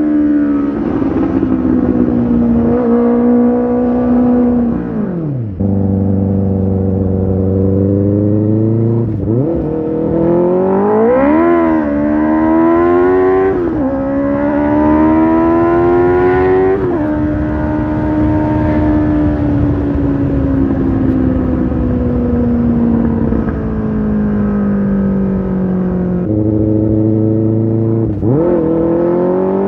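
2007 Honda CB600F Hornet's inline-four engine through its exhaust, its pitch rising and falling as the throttle opens and closes. It drops twice to a low, steady note for a few seconds, about six seconds in and again near the end, then climbs again.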